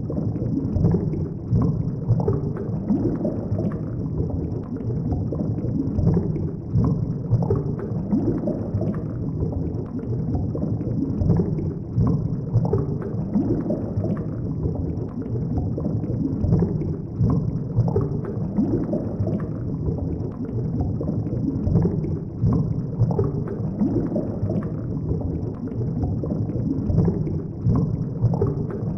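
Underwater ambience sound effect: a steady, deep, muffled rumbling wash that swells and dips every second or so.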